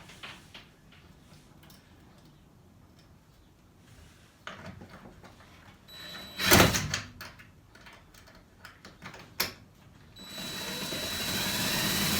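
Scattered knocks and handling clatter, with one loud thump about six and a half seconds in. Near the end a power drill starts and runs steadily, growing louder.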